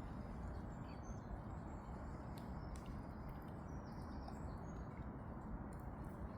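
Quiet outdoor ambience: a steady low hiss of rain with a few short, high bird chirps and some faint ticks.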